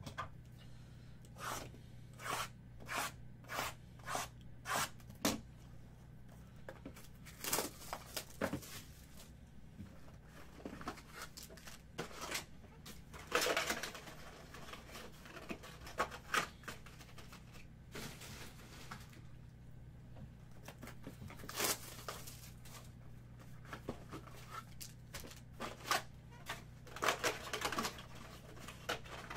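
Trading-card box wrapping and a foil pack being torn and crinkled open, in several rustling bursts. In the first few seconds there is a quick string of light clicks and taps.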